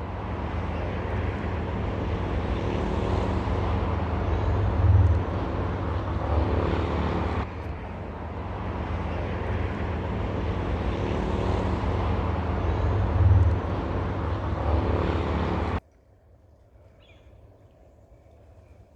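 A loud, steady engine drone with a low hum, cutting off suddenly about three-quarters of the way through.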